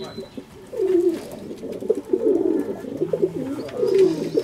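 Fantail pigeons cooing: several birds' low, wavering coos overlap, sparse at first and denser and louder from about two seconds in.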